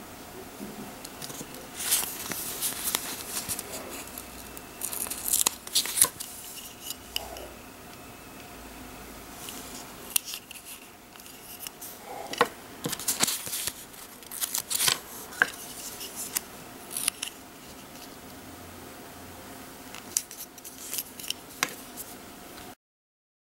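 Crinkling plastic packaging and clicks of small plastic toy parts being handled close up, in irregular bursts. The sound cuts off abruptly near the end.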